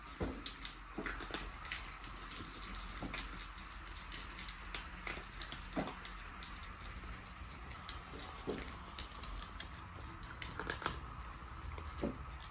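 Several cats crunching dry kibble from bowls: an irregular run of small crunches and clicks.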